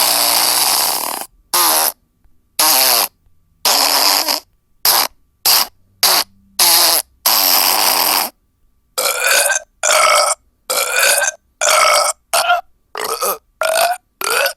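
A series of recorded burp sound effects played one after another, a dozen or more short belches of varied pitch and length separated by brief silences.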